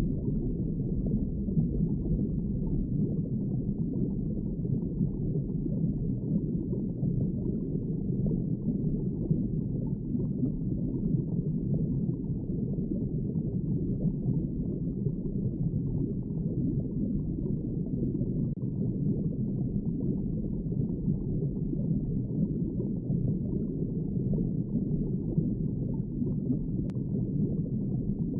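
Underwater ambience: a steady, low, muffled wash of water with a faint bubbling quality and no high sounds.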